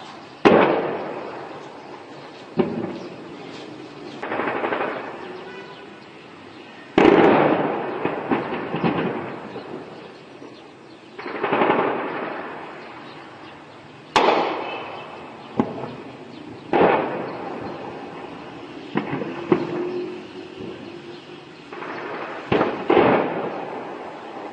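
Shelling heard across a town: about a dozen explosions at uneven intervals, one to four seconds apart, each a sudden bang followed by a rolling echo that fades over a second or two.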